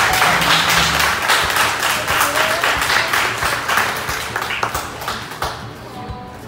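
A room of guests applauding, many hands clapping at once, over quiet background music; the clapping thins out and fades over the last second or two.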